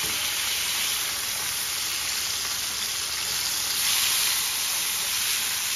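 Large pieces of beef searing in a hot frying pan: a steady sizzle, swelling a little about four seconds in. The meat is being browned all over before it is braised.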